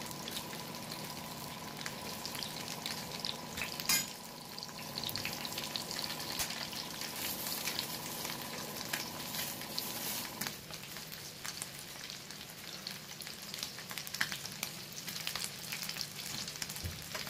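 Masala-coated whole kizhangan fish shallow-frying in hot oil in a pan: a steady sizzle with dense crackling and spattering, and one sharp pop about four seconds in.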